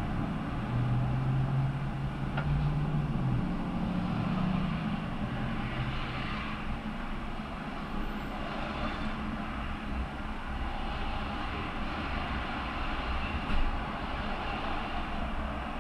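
Steady mechanical noise of an auto repair shop bay, with a low hum that comes in about a second in, rises slightly in pitch and fades after about four seconds. A single short knock comes near the end.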